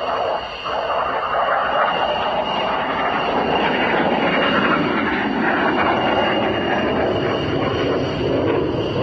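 Jet noise from a JF-17 Thunder's single RD-93 turbofan during a flying display, a steady loud rush that gets a little louder about a second in, with a thin steady high whine above it.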